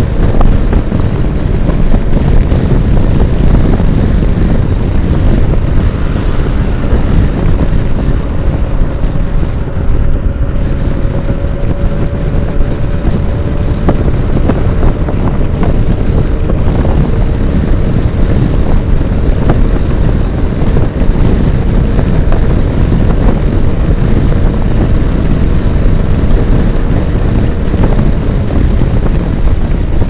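Loud, steady wind rushing over the microphone of a Yamaha NMAX 155 scooter held at full throttle, with the engine's steady drone underneath. The scooter has topped out at its maximum speed, held back by a strong wind.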